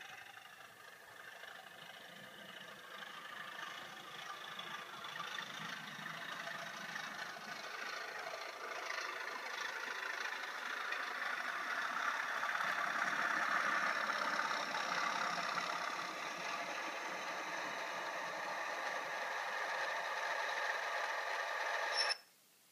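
Bachmann Class 37 model diesel locomotive's DCC sound decoder playing a diesel engine sound through its small onboard speaker, thin and without deep bass. It grows louder until about halfway, holds steady, then cuts off suddenly near the end.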